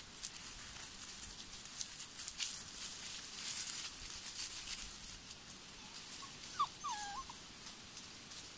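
West Siberian Laika puppies scrambling through undergrowth, with a steady crackle of dry leaves and twigs. About two-thirds through, one gives a short, high whimper whose pitch dips and rises.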